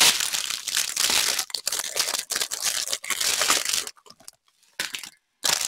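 Clear plastic packaging crinkling and rustling as it is handled. The crinkling is dense for about four seconds, then breaks into a couple of brief crinkles.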